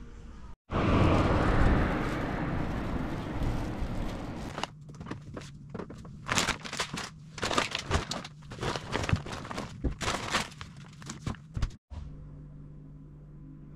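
Groceries being unpacked from a shopping bag into a fridge. First a loud, dense rustle for a few seconds, then a run of irregular knocks, clicks and rustles as items are set on the shelves. Near the end, a quiet steady hum.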